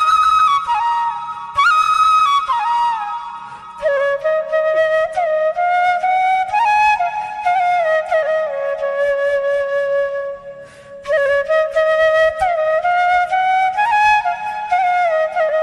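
Background music: a solo flute playing a slow melody with slides between notes, dropping to a lower register about four seconds in.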